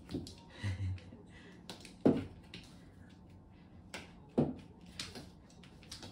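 Sharp knocks on a wooden floor and wall during cat play, two of them about two seconds apart, each short with a little room ring. A brief low voice sound comes near the start.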